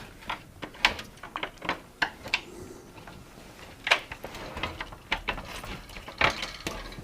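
Scattered clicks and knocks of an electric cooker's hob top being handled and fitted back into place, with a louder knock about four seconds in and another just after six seconds.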